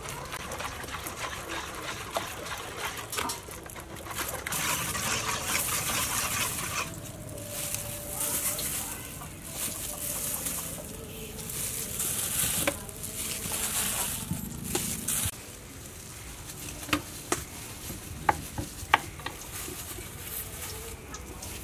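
Metal spoon stirring beef balls through a thick batter in a steel bowl, swishing in repeated bursts, followed by a few sharp clicks near the end.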